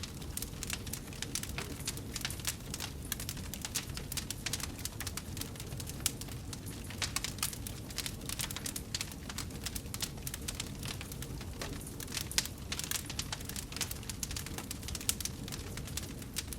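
Wood fire burning in a fireplace: dense, irregular crackling with frequent sharp pops over a steady low noise of the flames.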